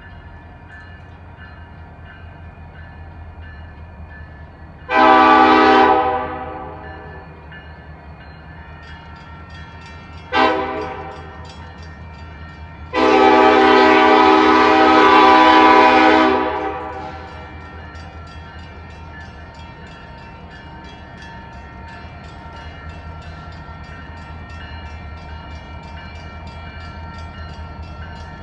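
Union Pacific freight locomotive's air horn sounding three blasts: one of about a second, a brief toot about five seconds later, and a long blast of about three and a half seconds. Under the blasts runs a steady low rumble as the train crawls closer.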